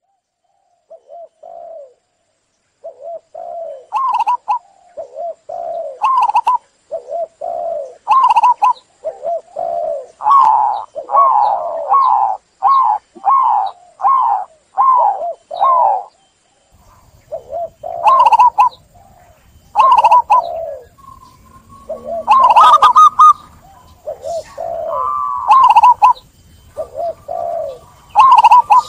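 Zebra doves (perkutut) cooing: phrases of short rolling coo notes repeated in quick succession, with a brief pause about halfway through. Later, overlapping calls suggest more than one bird singing.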